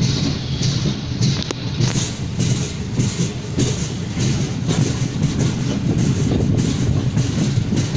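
Millat Express passenger coaches running slowly at about 20 km/h: a steady rumble of wheels on the rails, heard from an open coach doorway.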